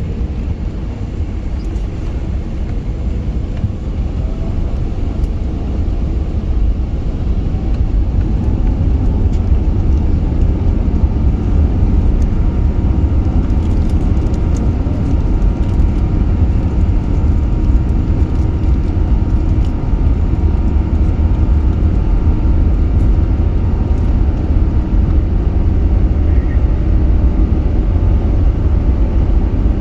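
Cabin noise inside an Airbus A380 starting its take-off: a deep, steady rumble of engines and rolling that grows louder over the first ten seconds or so, then holds.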